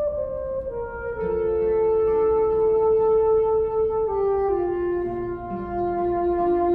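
Alto saxophone and classical guitar duo playing. The saxophone holds long notes that step down in pitch, a long one through the middle and a lower one held near the end, over shorter guitar notes.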